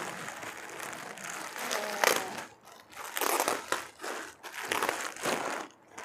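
Clear plastic garment bag crinkling as it is handled and opened, in irregular bursts, the loudest about two seconds in.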